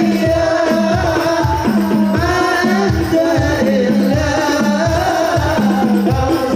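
Sholawat devotional singing with hand-drum percussion keeping a steady beat of a little under two strokes a second, over a held low tone.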